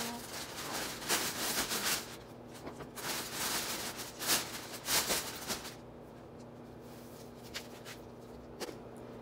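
Cardboard shoebox and a plastic shopping bag being handled: a run of rustles and scrapes for the first six seconds or so, then quieter with a few light clicks.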